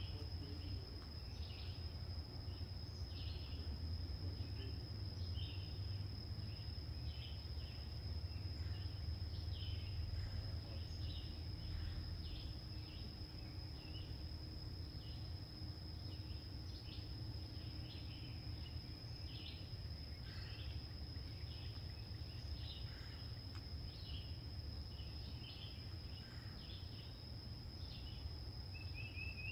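Faint summer outdoor ambience: a steady, high-pitched insect chorus with short bird chirps scattered throughout, over a low rumble.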